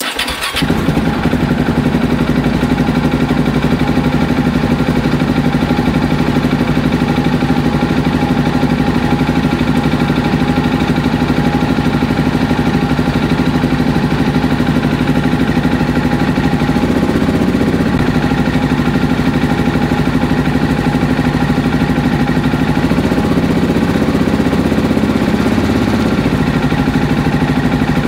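Husqvarna 701's single-cylinder four-stroke engine started on the button, catching at once and then running steadily at idle, with small changes in engine speed in the second half.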